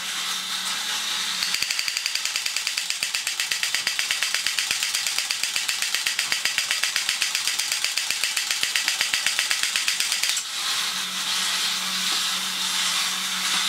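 Vintage Japanese tin battery-operated Roto Robot running, its small electric motor and gears whirring under a fast, even mechanical clicking as the body rotates with the guns out. About ten seconds in the clicking stops and the motor and gears whir on alone.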